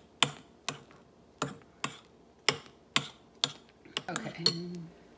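Metal spoon clinking against a glass mixing bowl while working whipped dalgona coffee foam: a run of short, sharp knocks, about two a second.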